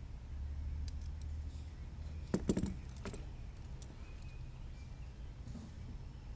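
Small clicks and a brief rattle of hand tools and the plastic frame of a micro FPV drone being handled during reassembly, the loudest cluster about two and a half seconds in. A low steady hum sits underneath.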